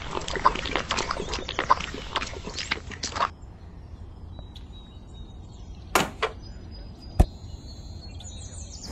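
Wet cement slurry pouring out of a small bucket onto sand, a dense wet splattering for about three seconds. A few sharp knocks follow later on.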